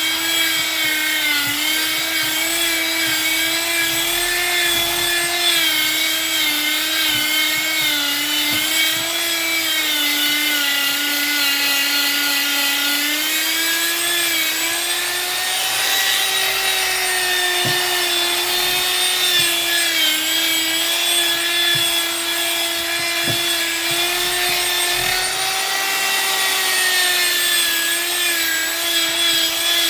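Handheld electric power tool running continuously with a high motor whine, working a wooden board; its pitch sags slightly and recovers now and then as it bears on the wood.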